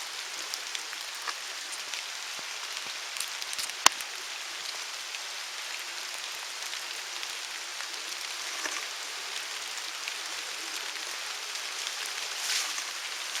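Steady rain falling in woodland, a constant hiss dotted with the small ticks of single drops. One sharp tap about four seconds in.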